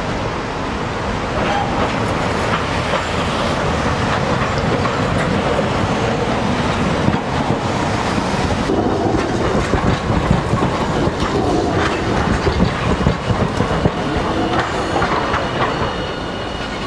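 Hiroshima Electric Railway (Hiroden) tram running slowly past at close range, its steel wheels clattering over the rail joints and pointwork of the terminal. A faint high wheel squeal comes in near the end.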